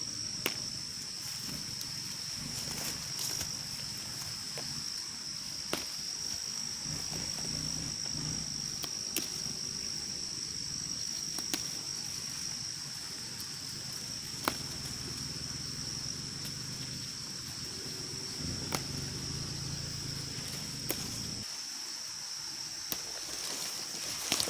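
A steady, high-pitched drone of insects, with scattered sharp clicks over it. A low rumble underneath stops suddenly near the end.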